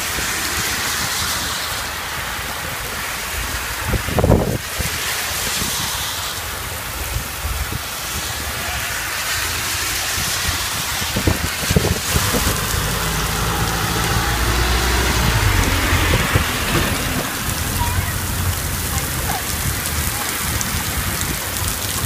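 Heavy rain pouring onto a flooded street and pavement, a steady hiss, with a low rumble from passing traffic and a brief loud knock about four seconds in.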